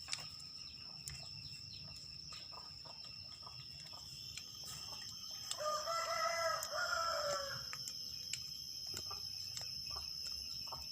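A rooster crows once, for about two seconds, midway through, over a steady high chirring of crickets. A few faint light clicks and taps come from the wrench tightening the angle grinder's gear-head bolts.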